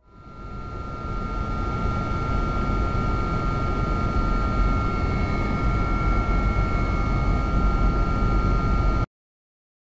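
Helicopter cabin noise in flight: a steady engine and rotor din with several high whining tones over it. It fades in over the first couple of seconds and cuts off abruptly about nine seconds in.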